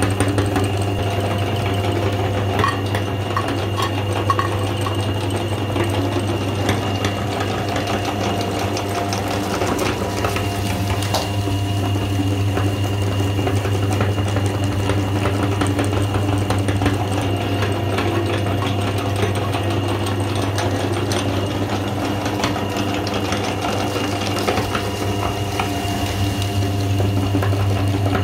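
Meat grinder running steadily with a constant hum, crunching dark crumbly sweets studded with hard candy bits as they are pushed out through the grinding plate, with small scattered crackles.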